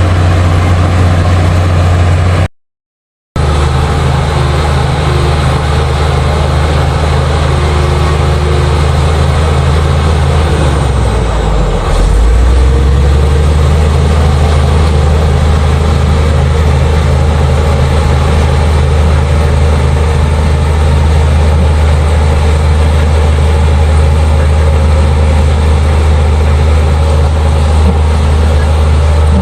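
Liugong bulldozer's diesel engine running steadily under a low, even hum; about eleven seconds in the engine note sags briefly and then picks back up. The sound cuts out for under a second near the start.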